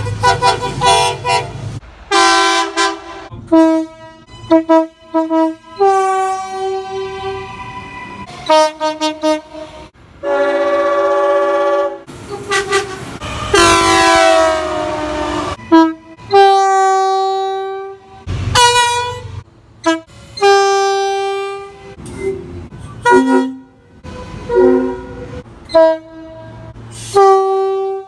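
Train air horns sounding a series of short and long blasts, each a multi-note chord. One long blast about halfway through slides down in pitch.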